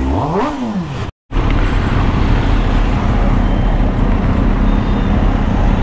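Kawasaki ZX10R inline-four engine blipped once, its pitch rising and falling quickly. After a sudden cut, a steady engine drone with road noise while riding.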